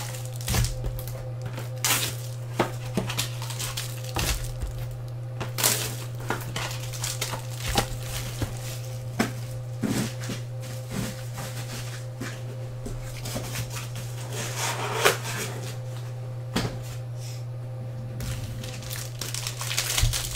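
Plastic and foil trading-card pack wrappers crinkling and rustling in irregular bursts as they are handled and opened, over a steady low hum.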